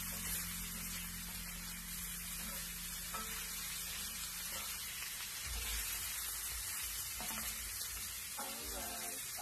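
Diced pork sizzling steadily as it fries in a skillet, stirred and turned with a wooden spatula.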